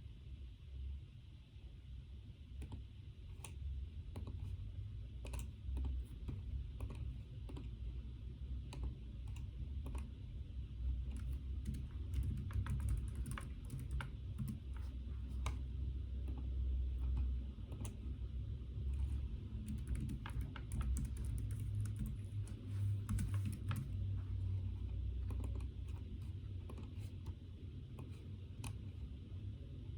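Typing on a computer keyboard: quick, irregular key clicks, thickest through the middle stretch, over a low steady rumble.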